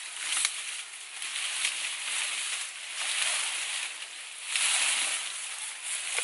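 Dry leaves and brush rustling and crackling as a person pushes through and handles undergrowth, swelling in several surges with a few sharp snaps.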